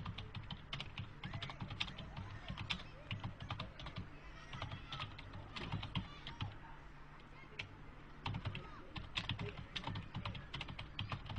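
Typing on a computer keyboard: a quick, irregular run of key clicks with short pauses, sparser for a moment about seven seconds in.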